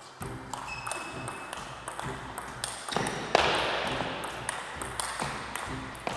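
Table tennis rally: a celluloid ball clicking back and forth off rubber paddles and the table top in a quick, irregular run of sharp pings, with a brief rush of noise a little past halfway.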